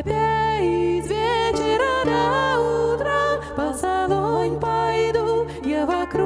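Live folk band music: a sliding lead melody over a low sustained drone note that breaks off briefly a few times.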